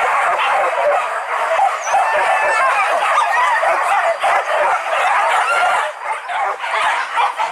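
A pack of boar-hunting dogs barking, yelping and whining over one another without a break, dipping briefly about six seconds in.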